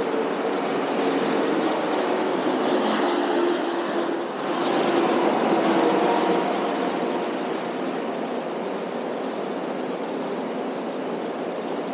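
An engine running steadily, with a brief dip about four seconds in.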